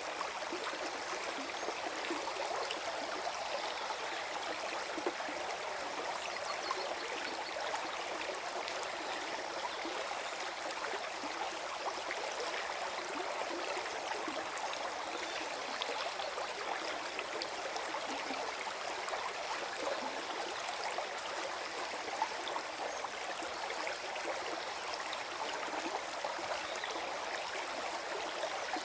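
Small forest stream flowing and gurgling over stones, a steady babble of running water.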